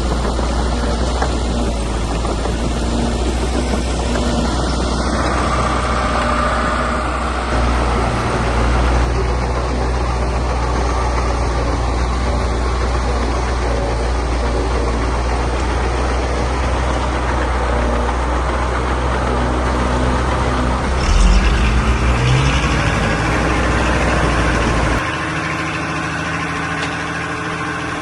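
Heavy diesel engine of earthmoving machinery running steadily, with a brief louder surge about three-quarters of the way through and the low engine hum dropping near the end.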